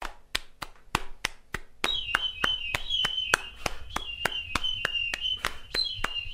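Sharp taps in a steady rhythm, about three a second, with a high warbling tone joining about two seconds in.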